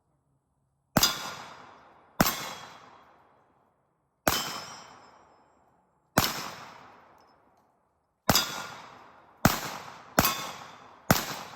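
Girsan 1911 pistol fired eight times, each shot followed by a long fading echo. The shots are about two seconds apart at first and come quicker, under a second apart, toward the end.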